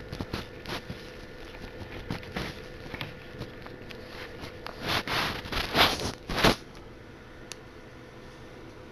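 Plastic DVD case being handled and opened: scattered light clicks and rubbing, then a run of about four louder scraping rustles from about five seconds in, and one small click near the end.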